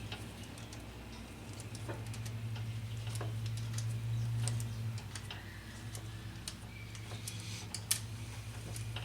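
Scattered light metallic clicks and taps, the sharpest near the end, from hand work on the 5.3L V8's rocker arms and push rods, with a steady low hum underneath.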